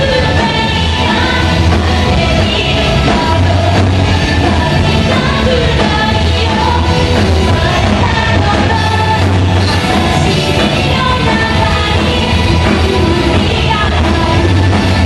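Live rock band playing loud, electric guitars over bass and drums, with a singer's voice carried on top.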